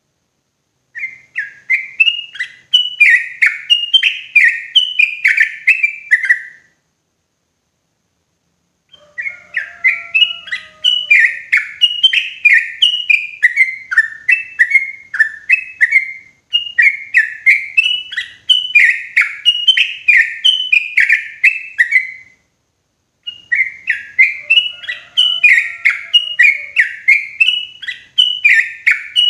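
Yellow-vented bulbul singing: four long runs of quick, repeated chirping notes, about two or three a second, with short silent pauses between the runs.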